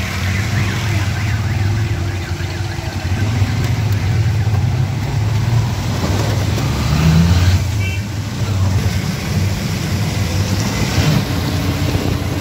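Small motor vehicle engines running on a wet, flooded road: a steady low engine hum with road and wind noise.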